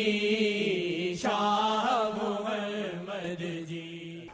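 Devotional naat singing in praise of the Prophet Muhammad: a held sung note over a steady sustained drone, then a melodic vocal line bending up and down from about a second in, between lines of the refrain.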